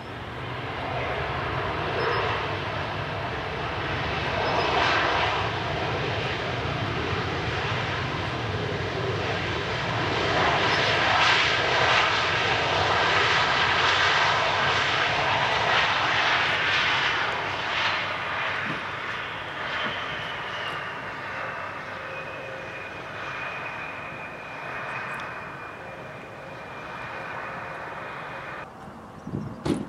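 Turbofan engines of an American Eagle Embraer regional jet running hard as it rolls along the runway, swelling to a peak in the middle and then easing. A high engine whine falls in pitch about two-thirds through and holds steady until the sound cuts off shortly before the end.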